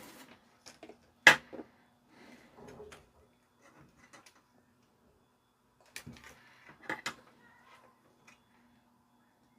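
Spring-loaded solder sucker (desoldering pump) clicking and snapping while desoldering components from a circuit board: one loud, sharp snap about a second in with smaller clicks right after, then another cluster of clicks around six to seven seconds in. A faint steady hum sits underneath.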